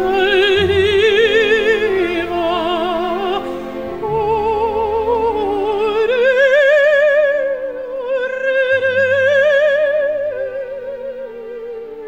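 Music: a high operatic voice singing long held notes with wide vibrato, the line rising about halfway through, over low held accompaniment.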